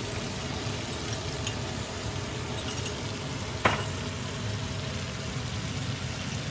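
Butter sauce sizzling and bubbling steadily in a cast-iron skillet of pan-fried soft-shell crab, with capers just added. One sharp click comes a little past halfway.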